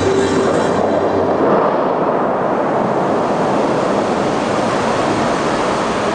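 The Bellagio fountains' water jets and spray rushing and falling back into the lake, a steady rushing noise. The last notes of the show's music fade out about a second in.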